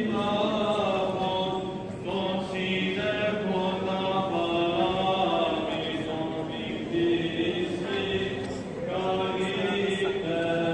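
Greek Orthodox Byzantine chant: voices singing slow, drawn-out melodic lines over a steady low held note.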